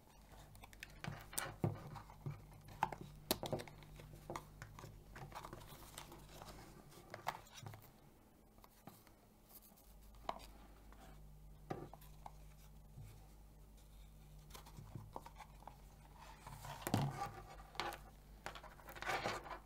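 Old leather camera case and a metal rangefinder camera handled by hand: scattered leather rustles and scrapes with small clicks and taps as the camera is unscrewed from the case and lifted out, busiest near the end.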